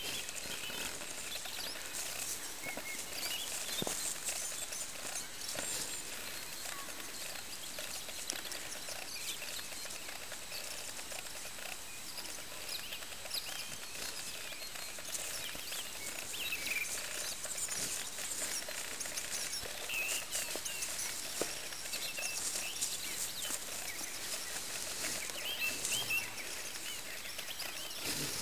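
Open-field outdoor ambience: a steady hiss with faint rustling ticks, and a few short bird chirps scattered through it.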